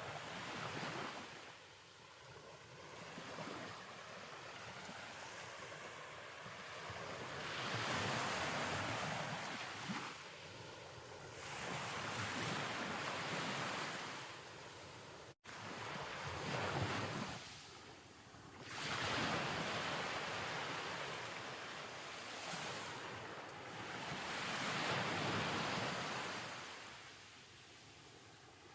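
Ocean waves washing in, a rushing noise that swells and fades every few seconds, with one abrupt dropout about halfway through.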